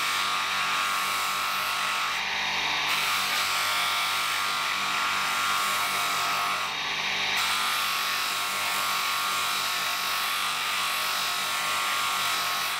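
Electric bench motor spinning a buffing wheel, with a wooden knife handle pressed against it: a steady motor whine under a grinding rub of wood on the wheel. The sound eases briefly twice, around two and seven seconds in.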